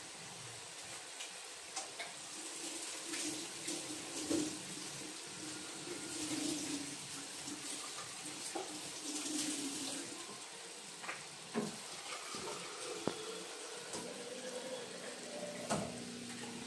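Thick mutton gravy simmering in a kadai, sizzling with a steady hiss and scattered pops of bursting bubbles.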